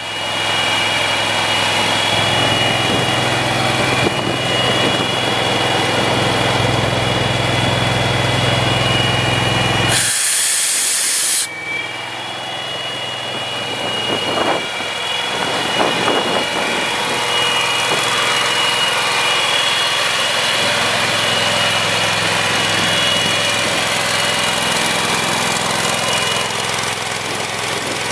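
X-Air SC70 portable air compressor running steadily on its small petrol engine, with a steady whine over the engine note. About ten seconds in, a loud hiss lasts for about a second and a half.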